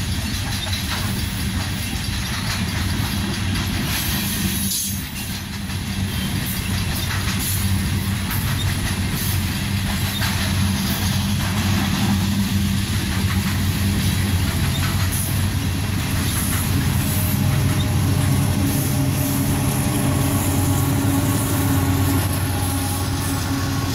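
Union Pacific coal train's hopper cars rolling past, the wheels clicking over the rail joints. The diesel engines of the rear distributed-power locomotives grow louder in the second half as they come by.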